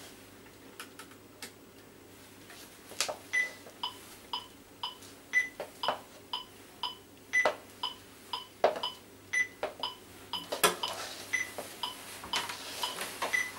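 Electronic metronome beeping about twice a second, with a different-pitched accent beep on every fourth beat, starting about three seconds in. Scattered knocks and rustles from handling an acoustic guitar, the loudest about three seconds before the end.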